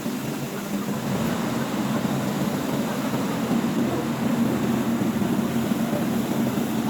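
Portable air conditioner running with a steady blowing hum that grows a little louder about a second in.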